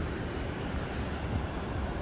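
Snowstorm wind blowing over the microphone, a steady low rush with an uneven rumble underneath.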